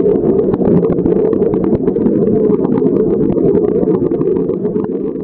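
Hammer-Head commercial pool vacuum running: a steady, loud low rumble with scattered crackles over it, easing off slightly near the end.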